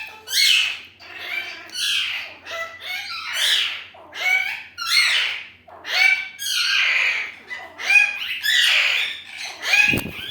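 Pet parrot squawking over and over, about one harsh call a second, with a single thump near the end.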